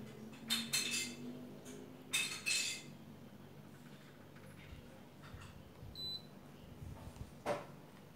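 Sharp clicks in two quick pairs, one pair within the first second and another just after 2 s, then a short faint high beep about 6 s in and a single louder click near the end, over a low steady hum.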